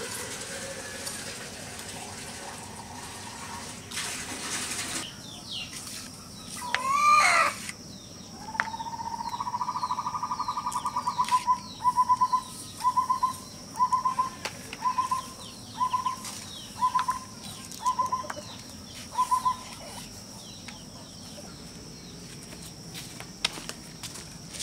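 Birds chirping and calling: a loud swooping call, then a trilled call followed by a short note repeated about once a second, over many quick high chirps.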